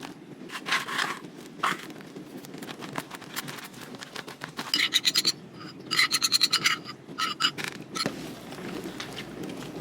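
Kitchen utensil scraping and stirring a thick mixture in a bowl, with two runs of rapid squeaky strokes midway.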